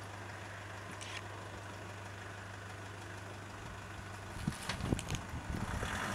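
Pickup truck's engine idling steadily while a tow rope to a tree stump is drawn tight. About four seconds in, it turns into a louder, uneven rumble with several sharp cracks and knocks as the truck pulls and the stump starts tearing out of the ground.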